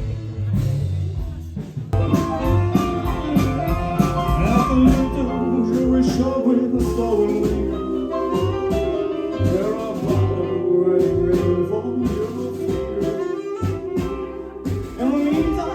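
Live band music with a singer and guitar, in a jazzy, swinging style, with a brief break about two seconds in.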